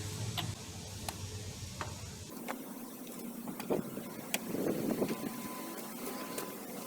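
Scattered light metallic clicks and small knocks as a flare nut wrench is fitted and worked on a power steering line fitting. A low steady hum stops about two seconds in.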